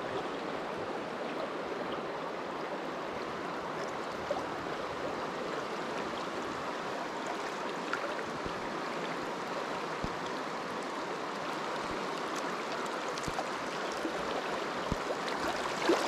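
Fast, shallow creek water rushing steadily over a rocky riffle.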